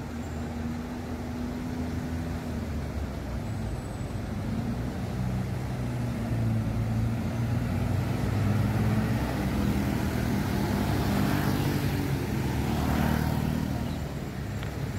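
A road-going tourist train driving past, its engine hum growing louder as the locomotive draws level and easing off as the carriages roll by.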